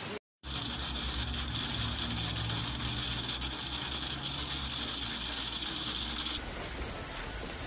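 Hail and heavy rain pelting a car's windscreen and body, heard from inside the car, over a low steady hum from the car. About six seconds in, this gives way to a plainer, steady hiss of hail and rain falling outdoors.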